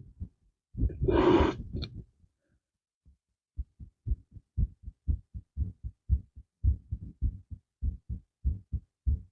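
A long, loud breath blown out, as if into a balloon, about a second in. From about three and a half seconds a chest microphone picks up a quick heartbeat: paired lub-dub thumps at about two beats a second.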